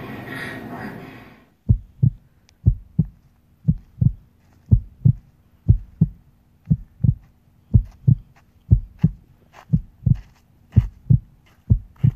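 Heartbeat sound effect: slow paired low thumps, about one lub-dub a second, over a faint steady hum, starting after a noisy background cuts off about a second and a half in.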